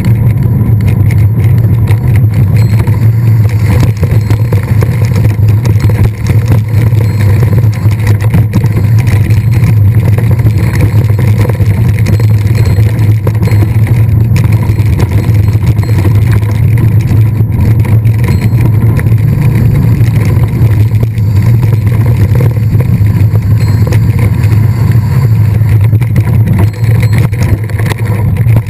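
Steady loud rumble of a mountain bike being ridden, picked up by a camera carried on the bike or rider: wind on the microphone with rattle from rolling over rough ground.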